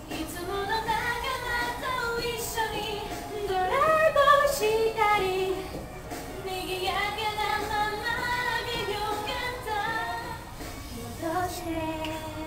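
Female voices singing a Japanese pop song over a backing track, the melody rising to its loudest about four seconds in.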